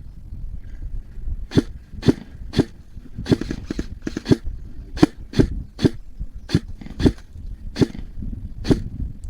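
Airsoft gun firing single shots, about fourteen sharp cracks irregularly spaced over some seven seconds, starting about a second and a half in, over a low rumble of wind or handling noise.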